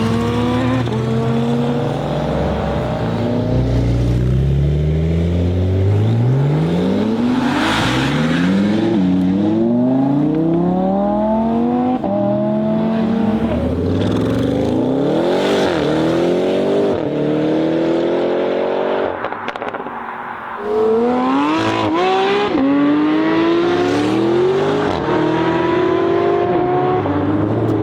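Supercar engines revving and accelerating hard, the engine note climbing in pitch again and again and dropping back between gear changes.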